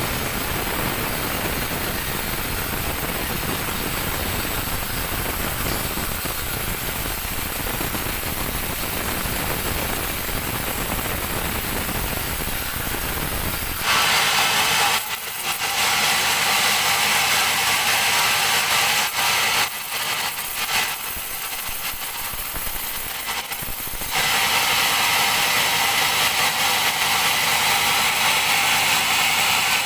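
Large sawmill bandsaw running and cutting a teak log, a loud steady mechanical noise. About 14 seconds in it changes to a brighter, higher hiss with less low rumble, shifting again briefly a few times later on.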